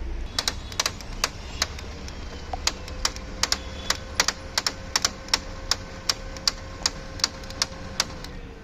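Brother DCP-L2541DW laser printer's drive running after power-on, with its gears clicking and knocking sharply and irregularly, about three clicks a second, over a steady motor hum that winds down near the end. The noise comes from faulty gears in the duplex tray, as the technician finds when the noise stops with the tray removed.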